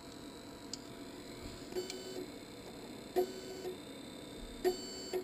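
About five separate sharp clicks from a Monoprice MP Select Mini 3D printer as its control dial is pressed, some followed by a short tone.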